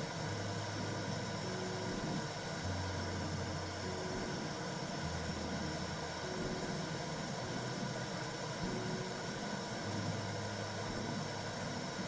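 Womb sound for soothing a baby: a steady whooshing noise like white noise, under soft low held tones that change every two or three seconds.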